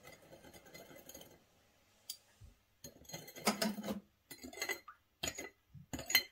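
Fish sauce poured from a small glass dish into a glass bowl of sugar water, then a metal spoon stirring in the glass bowl, clinking and scraping against the glass in short bursts.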